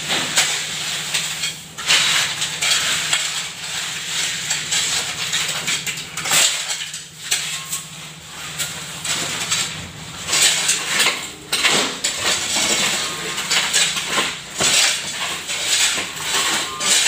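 Hoes and shovels scraping and chopping through a heap of wet concrete mix on a cement floor, in irregular strokes with metallic scrapes and clinks.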